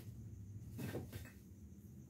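Handling noise from a motorcycle engine's cylinder block being lifted and turned in the hands: a light click at the start, then a short scraping rattle about a second in, over a low steady hum.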